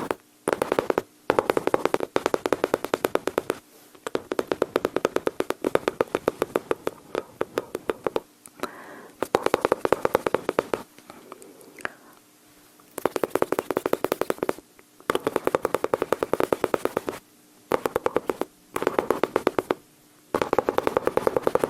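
Mouth sounds imitating rapid gunfire: fast trains of sharp clicking pops, in about ten bursts of one to four seconds each with short pauses between.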